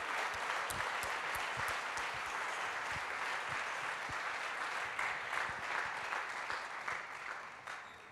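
Congregation applauding, a steady clatter of many hands clapping that dies away near the end.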